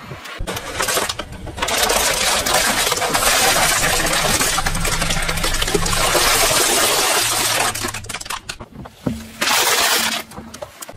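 A car tyre rolling over and crushing plastic bottles, a long run of crackling and crunching plastic with a car engine running low underneath. A second, shorter crunch comes about nine and a half seconds in as a foil-wrapped packet is flattened under the tyre.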